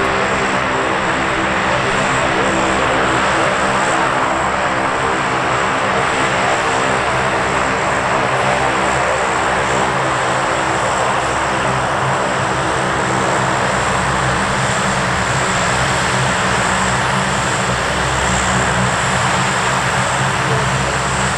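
C-130H Hercules' four Allison T56 turboprop engines running steadily on the ground, a continuous propeller drone with several steady low tones and a thin high whine.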